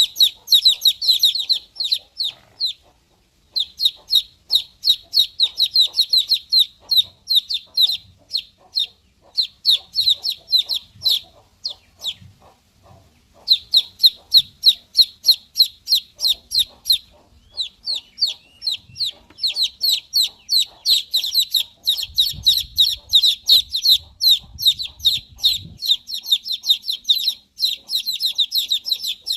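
Baby chicks peeping: runs of rapid, high-pitched cheeps, several a second, broken by a couple of short pauses.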